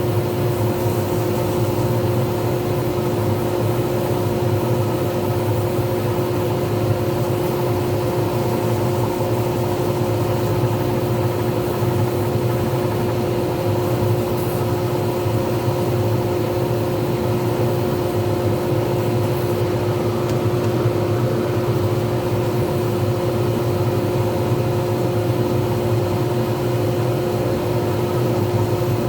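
Lathe running steadily, a constant hum with a few fixed tones and no change in speed.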